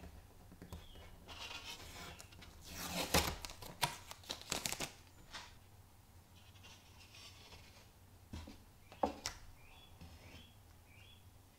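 Thin wooden frame mouldings handled on a workbench: light knocks, taps and scrapes of wood, busiest a few seconds in.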